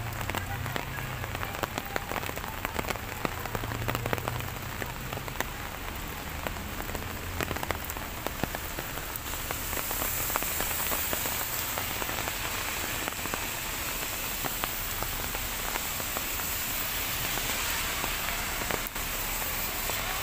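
Steady rain falling, with many separate drops ticking close by over an even hiss. The rain gets heavier about halfway through, and the hiss fuller and brighter.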